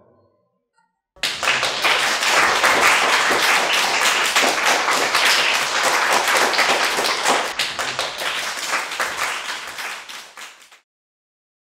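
A group of people applauding, starting about a second in and fading out near the end.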